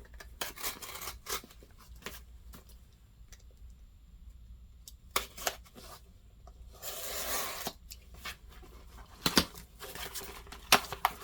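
A newly delivered package being opened by hand: packaging rubbing and scraping, scattered sharp clicks, and a tearing sound lasting about a second partway through.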